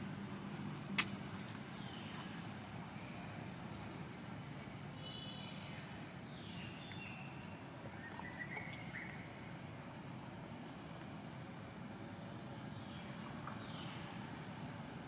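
Outdoor ambience: a faint high chirp repeating a few times a second, like an insect, with a few short high calls and one sharp click about a second in.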